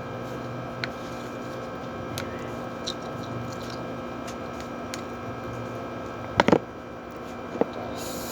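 Steady mechanical hum in the room, with scattered faint clicks, a quick double knock about six seconds in and one more knock a second later, from slime and its container being handled.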